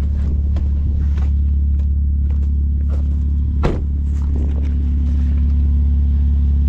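Car engine idling with a steady low exhaust rumble, the new noise of a catalytic converter that has come detached from the exhaust. Scattered light clicks and knocks.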